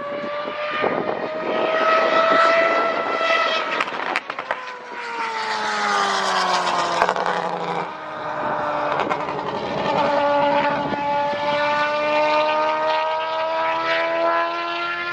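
Historic Group C race car engine running at high revs: the pitch climbs for a few seconds, drops sharply with a few cracks about four seconds in, falls away steadily, then climbs again through the second half.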